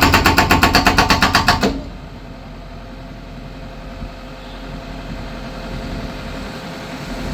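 Concrete breaker hammering in rapid, even blows, about eight a second, stopping just under two seconds in. After that its engine keeps running steadily.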